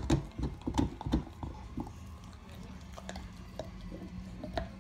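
Pit bull gnawing a deer antler: irregular cracking and clicking of teeth on antler, dense for the first second or so, then sparser clicks.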